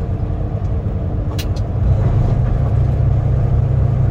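Tractor-trailer's engine and road noise heard from inside the cab while driving, a steady low rumble that grows louder about two seconds in. A couple of short clicks come just before that.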